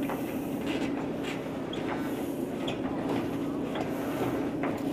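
A steady mechanical hum with irregular clicks and knocks over it.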